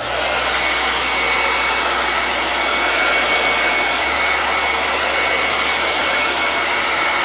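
Handheld hair dryer switched on and blowing steadily over a freshly wiped wooden sign round to dry it, a steady rush of air with a faint high whine.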